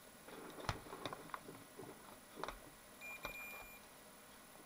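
A few faint clicks of handling, then a single short high electronic beep about three seconds in, from a multimeter being set up to check the battery's voltage.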